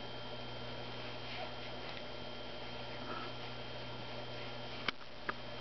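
Steady electrical hum over low background hiss, with faint small sounds and two sharp clicks close together near the end.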